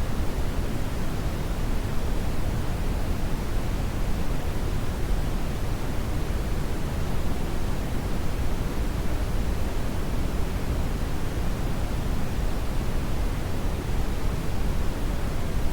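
Steady brown noise: an even, deep rushing hiss, strongest in the bass and fading toward the treble, with no changes.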